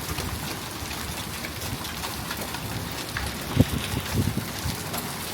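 Steady heavy rain mixed with hail, with scattered sharp ticks of hailstones striking. A few low thumps come about three and a half to four and a half seconds in.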